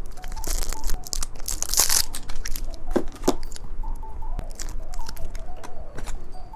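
Plastic candy packaging being handled and torn open to get at a small torch-shaped jelly candy: bursts of crinkling and tearing about half a second and two seconds in, among many small clicks and taps, close to the microphone.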